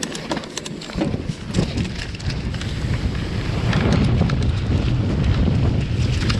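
Mountain bike rolling fast down a dirt trail: tyres on the dirt and scattered clicks and rattles from the bike, under a low wind rumble on the microphone that builds after about a second as the bike picks up speed.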